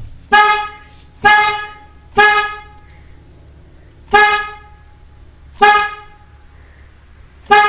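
Car horn honked in six short toots at uneven intervals, each blast cut off quickly.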